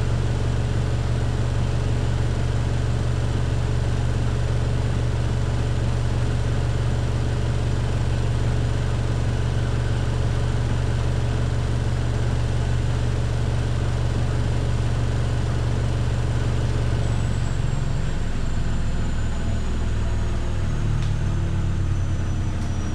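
Miele PW6055 professional washing machine in its 1400 rpm final spin: a steady, deep hum of the drum at full speed. About three-quarters of the way through, the hum breaks up and the motor's whine starts to fall in pitch as the spin begins to slow down.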